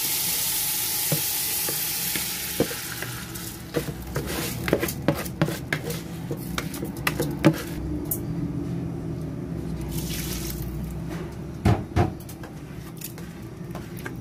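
Washed rice sizzling and hissing in hot oil in an aluminium pot, fading after a few seconds; then a wooden spatula stirs the rice, with scraping and many sharp knocks against the pot.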